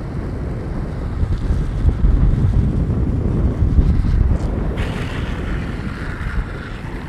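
Wind blasting the microphone over a low rumble of longboard wheels rolling fast on asphalt. About five seconds in, a hissing squeal lasting about two seconds joins it: grippy urethane wheels sliding sideways as the rider puts a hand down into a slide.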